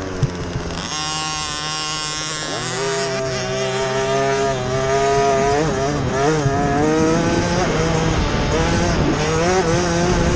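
Motocross bike engine heard from on board, pulling hard: the revs sit high about a second in, drop sharply at a gear change about two and a half seconds in, then climb again and hold, wavering with the throttle.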